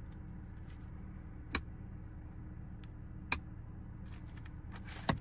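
Sharp plastic clicks, about two seconds apart, as a car's sun visor and its vanity mirror cover are handled, over a low steady hum in the cabin.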